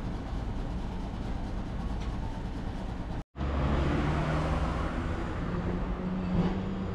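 Street tram and traffic noise at a tram stop: a low steady rumble with a hum from an approaching streetcar. The sound breaks off for a moment about three seconds in.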